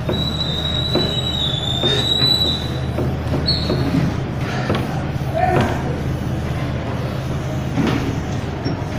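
Whiteboard eraser rubbing marker writing off a whiteboard: a high steady squeak for the first two and a half seconds and again briefly a second later, then repeated wiping strokes, over a low steady hum.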